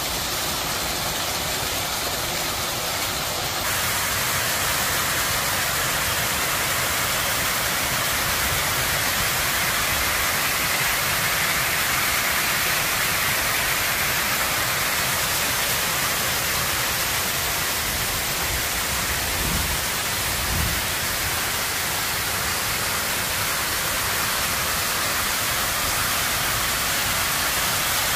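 Artificial waterfall: water pouring off a ledge and splashing into a shallow pool, a steady, even rush of falling water.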